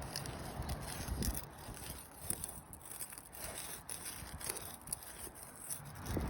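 Faint, irregular scraping and crackling of a tool being worked underneath asphalt roof shingles to reach their nails.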